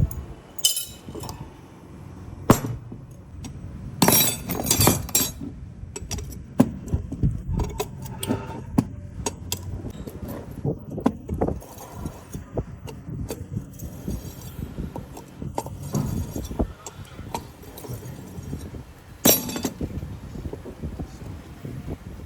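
Irregular clinks and knocks of metal parts and hand tools being handled, with a few sharper strikes about four and nineteen seconds in.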